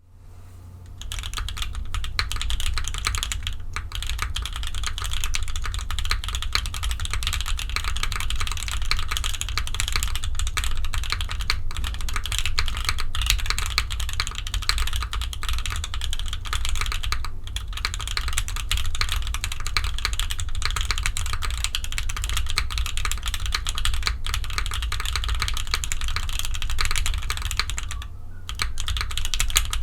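Steady, fast typing on a gummy O-ring-mounted Fjell keyboard with a polycarbonate plate and lubed JWK Popus switches. It makes a dense stream of keystroke clacks that starts about a second in, with a few brief pauses.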